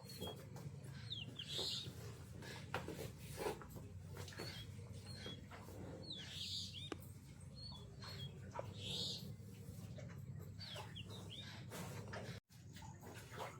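Faint chicken calls: short high chirps that recur every few seconds over a low steady hum. The sound cuts out briefly near the end.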